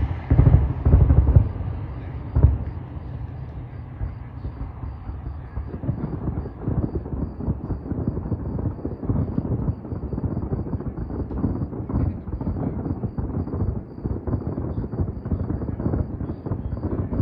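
Distant aerial fireworks shells bursting: a few heavy low booms in the first three seconds, then a rolling low rumble of further bursts for the rest of the time.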